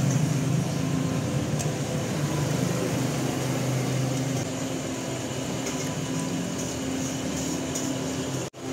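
Steady low mechanical hum, with a few faint light clinks. It cuts out abruptly for a moment just before the end.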